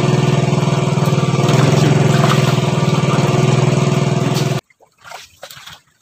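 A small engine running steadily with a fast, even beat, stopping abruptly about three-quarters of the way through; faint splashing of water follows.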